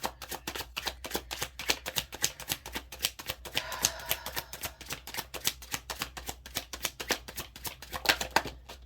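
Tarot deck being shuffled by hand: a rapid, even run of card clicks, several a second, that stops just before the end.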